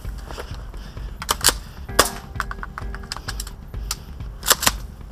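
Sharp cracks and clicks from Tokyo Marui M870 green-gas airsoft shotguns firing during a shootout: several single reports, the loudest about two seconds in and two in quick succession near the end.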